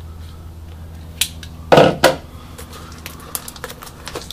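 Hands handling a shrink-wrapped cardboard box of trading cards: a single loud knock about two seconds in, then light taps and crinkles of the plastic wrap.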